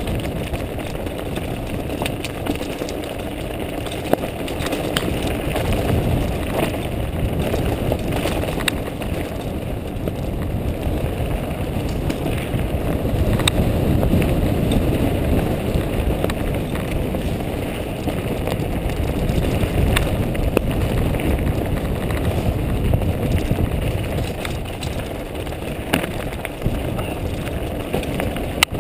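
Mountain bike riding down rocky singletrack: a steady rumble of tyres on loose stone and wind on the microphone, with scattered sharp clicks and knocks from the bike and stones.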